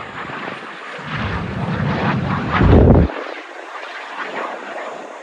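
Jet aircraft flying past, a steady rushing engine noise that builds over the first few seconds. Wind buffets the microphone with a heavy low rumble around three seconds in that cuts off suddenly.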